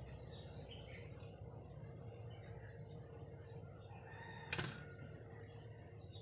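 Birds chirping faintly, a few short falling chirps, over a low steady hum, with a single sharp click about four and a half seconds in.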